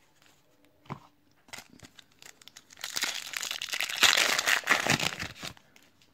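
Foil wrapper of a 2018 Topps WWE Women's Division trading-card pack crinkling as it is handled and crumpled in the hand, loudest from about three to five and a half seconds in.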